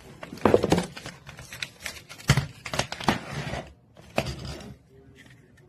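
Irregular clatter, knocks and rustling of objects being handled and moved about, with the loudest knocks about half a second and two and a half seconds in.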